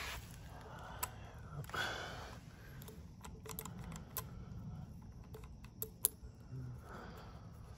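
Light, scattered clicks and taps of fingers handling a motorcycle wheel hub and working its wheel bearing, with a brief rustle about two seconds in and a sharper click about six seconds in.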